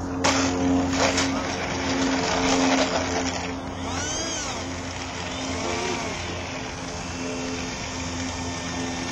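RC jet landing: a loud rushing from its 70 mm electric ducted fan and wheels on asphalt starts suddenly at touchdown, just after the start, and eases off after about three and a half seconds as it rolls out. Background music plays throughout.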